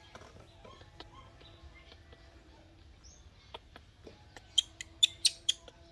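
Newborn macaque giving a quick run of about five short, high-pitched squeaks, starting about four and a half seconds in.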